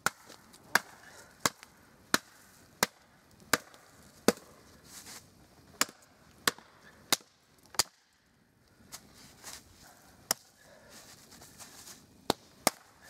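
Hatchet chopping a long dead branch into lengths. Sharp single blows come about one every 0.7 s in two runs, then a lull, then three more strikes near the end.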